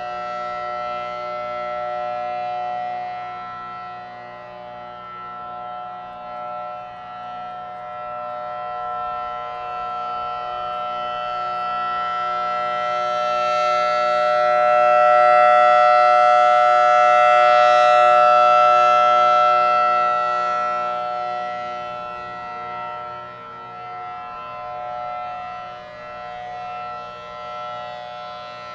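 Outdoor warning siren sounding a steady chord of several held tones, swelling louder about halfway through and then easing back off.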